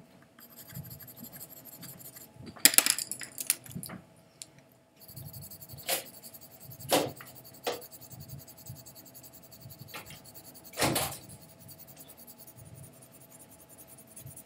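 Colored pencil scratching on paper in light shading strokes as color is layered to darken a swatch, with a few louder, sharp strokes, the strongest about three seconds in and about eleven seconds in.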